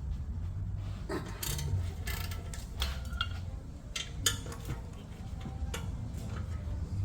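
Sharp metal clinks and knocks of hand tools on brake hardware, coming at irregular intervals, during removal of a front brake caliper bracket held by E16 inverted Torx bolts. A steady low hum lies underneath.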